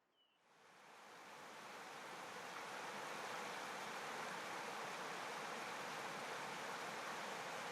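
Steady, even rushing hiss that fades in over the first two to three seconds and then holds level.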